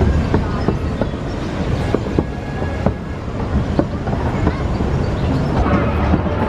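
Roller coaster train running along its track: a steady low rumble with rapid irregular clatter from the wheels.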